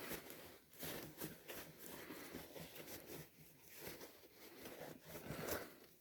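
Faint, irregular rubbing and rustling strokes as a vacuum cleaner hose is wiped clean by hand, ending near the end.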